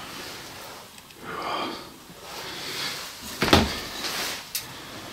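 Movement and handling noises: soft breathy rustles, a single thump about three and a half seconds in, and a small click about a second later.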